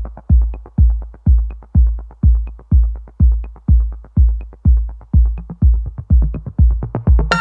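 Electronic background music: a steady kick-drum beat about twice a second with a light tick between beats, and fuller synthesizer notes joining in right at the end.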